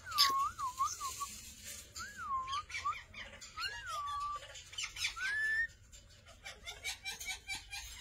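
Parrots whistling and chattering: about four clear whistled notes that swoop up and down in pitch in the first six seconds, the last one rising, among rapid short high chirps and clicks that carry on more quietly afterwards.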